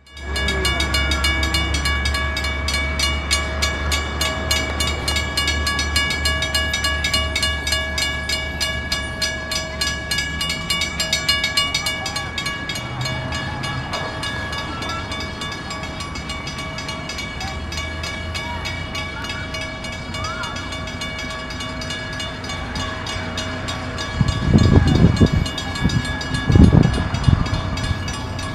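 Railroad crossing warning bell ringing in fast, even strokes, loud for the first dozen seconds and fainter after. Near the end come two short, louder low rumbles.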